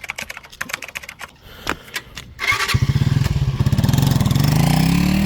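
Motorcycle engine starting after a few clicks and rattles, catching about two and a half seconds in, then running and revving up with a rising pitch.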